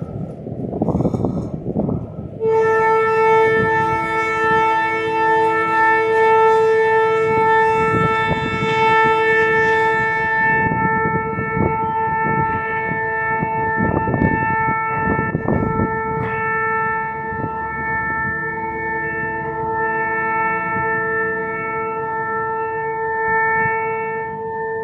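Diesel locomotive air horn sounded in one long, continuous blast of several steady notes together, starting abruptly about two and a half seconds in and held on. Rumbling wind and road noise lie underneath.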